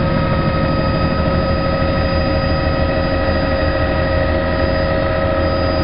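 Helicopter running steadily: an even high-pitched whine held on several steady tones over a loud low throbbing rumble.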